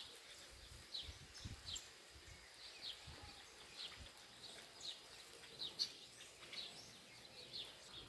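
Faint, scattered short high chirps from a flock of small seed-eating birds feeding on the ground, saffron finches and house sparrows among them.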